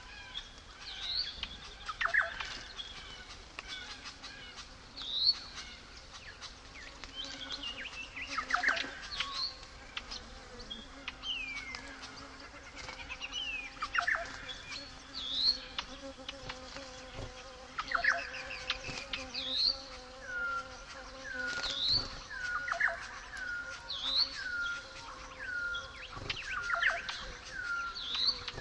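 Outdoor bush ambience of birds calling over a faint steady insect-like hum. Quick rising whistles recur every couple of seconds, and in the second half a run of short falling notes repeats about twice a second.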